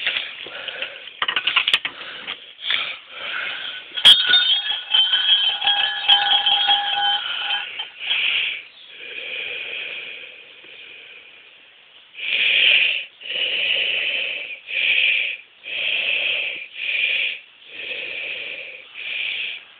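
A shrine's hanging suzu bell, shaken by its rope: a sharp clank, then a few seconds of jingling ringing. Later comes a louder, regular series of short pulsing sounds, about one a second.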